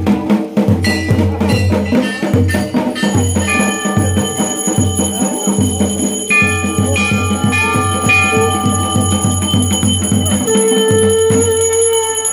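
Temple bells ringing continuously over a steady, repeated drum beat. The drumming stops about a second before the end while the bells keep ringing.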